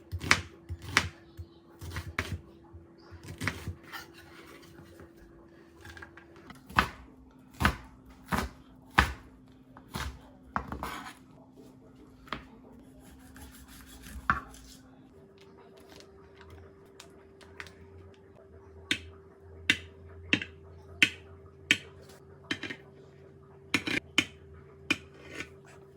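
Kitchen prep sounds: a string of sharp knocks and clinks from utensils and dishes handled on a counter, some like a knife striking a cutting board, irregular at first and in a quicker run near the end. A faint steady hum lies underneath.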